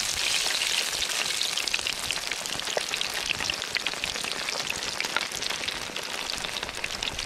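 Beer-battered fish fillets sizzling and crackling in hot oil in a frying pan, with many small pops; the sizzle eases slowly.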